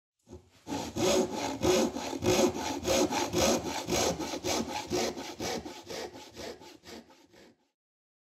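Hand saw cutting through wood in quick, even strokes, about four or five a second. It fades away and stops shortly before the end.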